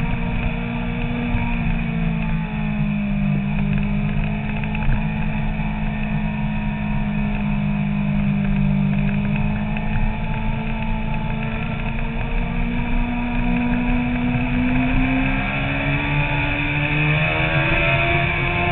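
Suzuki sportbike's engine running at cruising speed, heard from on board. Its pitch sags slightly, then rises over the last few seconds as the bike accelerates, with a steady low wind rumble on the microphone.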